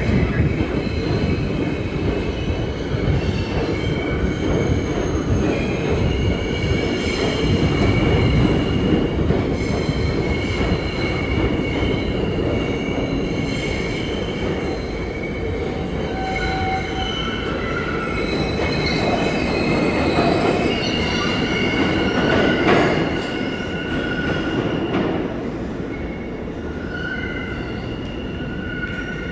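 New York City subway train running through the station: a steady rumble of wheels on rail, with steel wheels squealing in shifting high tones throughout and a brief louder crack about three-quarters of the way through.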